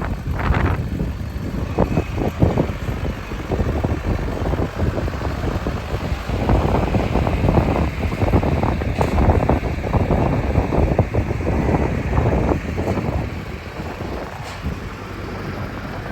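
Diesel engine of a 2009 Bobcat S205 skid steer running, a loud, rough rumble that swells in the middle and eases near the end.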